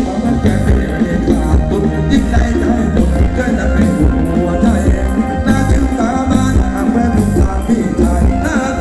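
Thai luk thung dance music from a live band over the stage sound system: a singer over a steady beat.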